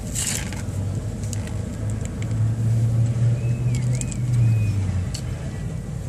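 A motor vehicle's engine running nearby: a low hum that swells through the middle and fades out about five seconds in. A short hiss at the start and a few light clicks.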